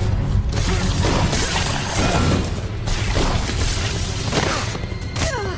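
Cartoon sound effects of electric blasts: loud, continuous crackling and zapping that surges several times, over an orchestral-style action score.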